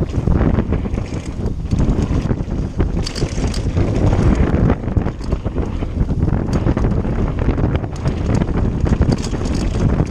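Wind buffeting the microphone of a handlebar-mounted camera on a mountain bike riding fast down a dirt trail, over a steady rumble of the tyres on the ground. Scattered light clicks and rattles come from the bike throughout.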